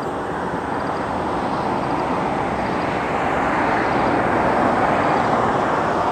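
Steady rushing noise of a vehicle on the nearby road, growing gradually louder as it approaches.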